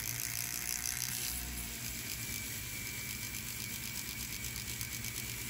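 Rotary tool spinning a 1,000-grit 1-inch sanding disc on a foam backing pad against a silver piece: a steady whir with the hiss of fine sanding on metal.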